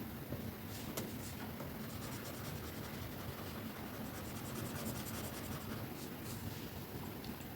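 Stylus scratching across a drawing tablet's surface, with a run of quick short strokes around the middle, over a steady hiss of background noise.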